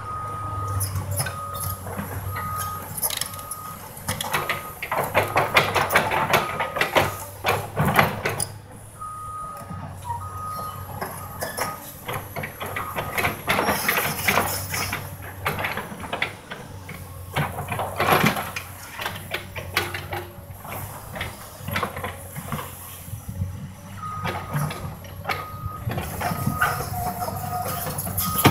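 Komatsu PC200 excavator's diesel engine running through demolition, with repeated bursts of timber and rubble cracking and crashing down. A backup alarm beeps about twice a second in stretches at the start, around ten seconds in, and near the end.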